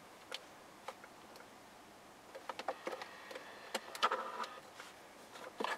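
Faint clicks and taps of a hand working a control tablet in its dock in the BMW M760Li's rear armrest and lifting it out. There are a few isolated clicks at first, then a quick cluster from about two and a half to four and a half seconds in.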